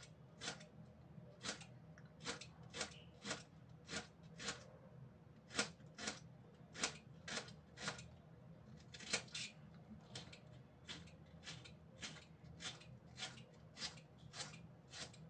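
Kitchen knife chopping onion on a cutting board: short sharp knocks of the blade on the board, about two a second, unevenly spaced.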